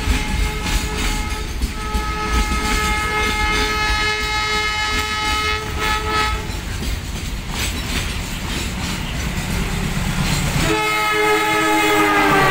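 Container freight wagons rumble and clatter past on the rails while a locomotive horn sounds one long steady multi-tone blast lasting about six seconds. Near the end the horn sounds again, louder and falling in pitch, as the approaching passenger train's locomotive comes up and passes.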